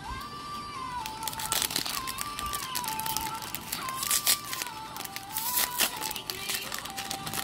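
Foil booster-pack wrapper crinkling and tearing as it is pulled open, starting about a second and a half in. A simple melody of single notes, stepping up and down in a repeating pattern, plays throughout.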